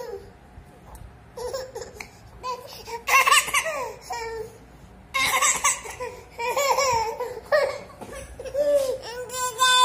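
A toddler girl laughing and squealing in short bursts, then near the end breaking into one long wail as the crying starts again.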